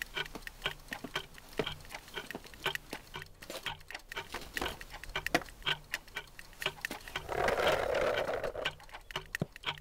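Foley-recorded clocks ticking, many at once and out of step, with sneaker footsteps on a concrete floor. About seven seconds in, skateboard wheels roll across the floor for about a second and a half.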